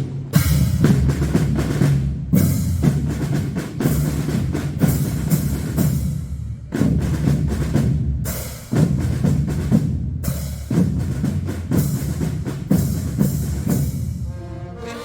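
Marching-band drum section playing a cadence: snare drum rolls over bass drum beats, in phrases broken by brief pauses. Brass begins to come in at the very end.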